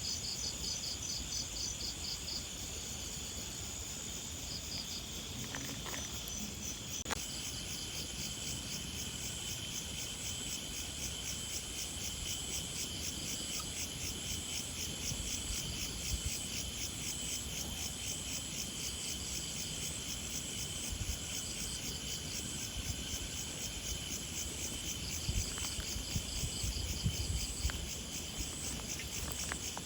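Chorus of chirping insects in grass: a steady high trill layered with a fast, evenly pulsing chirp that comes in about seven seconds in. A few soft low thumps near the end.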